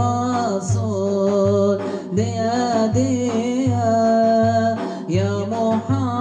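Male voice singing a Turkish Sufi hymn (ilahi) in a melismatic, bending melody, over a deep rhythmic pulse that repeats about every three quarters of a second. This is a 'müziksiz' arrangement, made with voices alone and no instruments.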